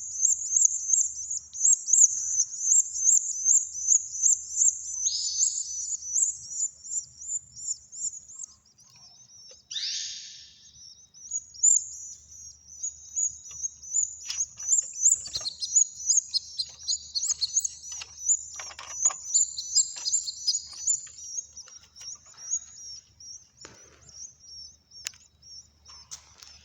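Caged songbird chicks, about twelve days old, chirping in rapid, repeated high-pitched calls, with a short lull about nine seconds in and a downward-sliding call just after.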